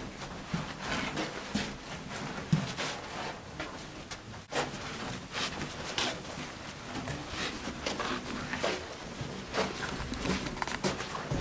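People moving through a tunnel: irregular footsteps, scuffs and rustles, one sharp knock about two and a half seconds in.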